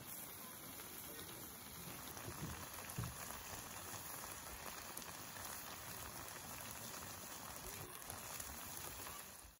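Offal hotpot bubbling at a simmer in an aluminium foil tray on a stove: a steady, low, crackling bubbling hiss, with a soft thump about three seconds in. It cuts off suddenly near the end.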